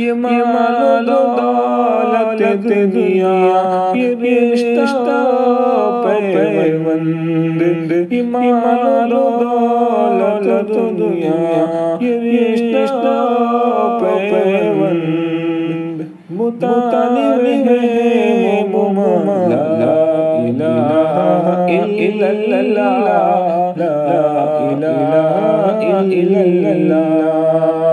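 A voice singing an Urdu hamd in long, ornamented melodic lines with pitch glides. The singing breaks briefly about halfway through, then carries on.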